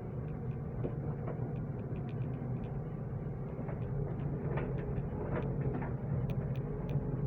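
Waterfall: a steady low rush of falling water, with scattered faint ticks throughout.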